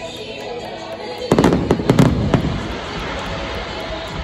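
Aerial fireworks bursting overhead: a quick run of bangs and crackles starts about a second in, then fades back to a lower rumble.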